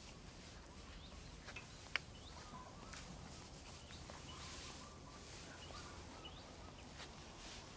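Quiet outdoor ambience with birds chirping now and then in short rising chirps, and a soft rustle of dry straw as a man climbs a haystack. One sharp click about two seconds in.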